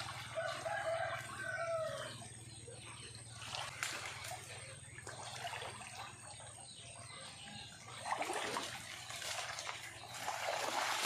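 A rooster crows once in the first two seconds. After that, muddy creek water splashes and sloshes, with dry branches and banana leaves rustling as a brush fish trap is pulled apart by hand. The loudest splashing comes near the end.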